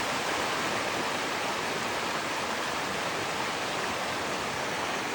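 Runoff water rushing steadily through a flood control channel.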